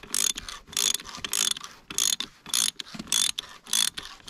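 Ratchet wrench with a 21 mm socket clicking in repeated short strokes, about seven in four seconds, while undoing the plastic thermostat housing cover on an Evinrude E-TEC outboard.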